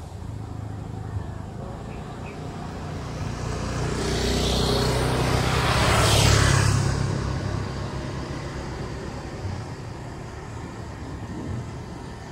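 A motor scooter approaches and passes close by, its engine and tyre noise swelling to a peak about six seconds in and then fading away.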